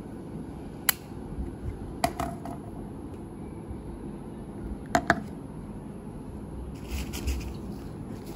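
A few sharp clicks and taps from handling a blood glucose meter and its test strip on a wooden tabletop, over a steady background hiss. One click comes about a second in, a small cluster follows about two seconds in, and a close double click comes about five seconds in.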